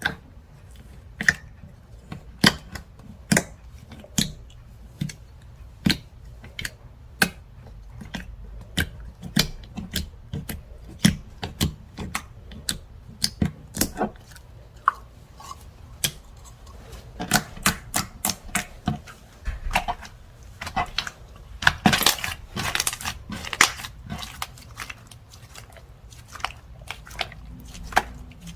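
Hands playing with slime: sharp, sticky clicks and pops as it is pressed, poked and folded, about one a second at first and coming thicker later, with a dense run of crackling about two-thirds of the way through.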